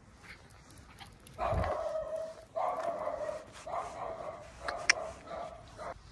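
Four drawn-out animal cries in a row, each about a second long and held at a steady pitch, with a sharp click near the end.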